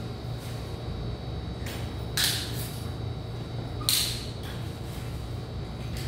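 Sharp hammer knocks on the plastic leveling clips set between large ceramic floor tiles: a faint knock, then two loud ones about two seconds apart, each ringing briefly, over a low steady hum.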